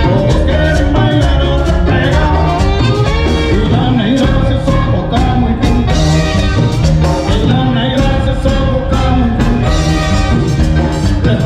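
Cumbia band playing live with a singer, loud, over a steady percussion beat.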